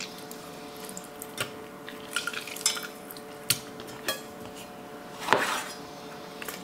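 Scattered knocks and clinks of lemon prep: squeezed lemon halves dropping into a stainless steel saucepan and a chef's knife cutting a lemon on a wooden cutting board, the loudest knock about five seconds in. A steady faint hum runs underneath.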